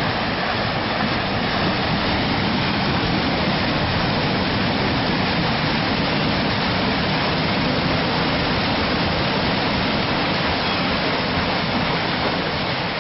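Steady rushing of water churned up by a paddle steamer's paddle wheel.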